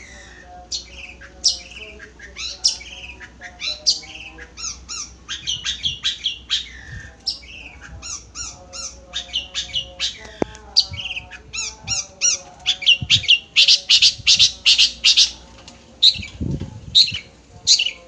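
Long-tailed shrike (cendet) singing: a fast, varied run of short, sharp chattering notes that becomes denser and louder about two thirds of the way through.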